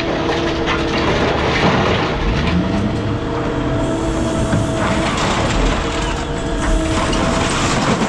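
Heavy machinery running with a steady engine or hydraulic whine, among repeated clanks and rattles of scrap metal being handled.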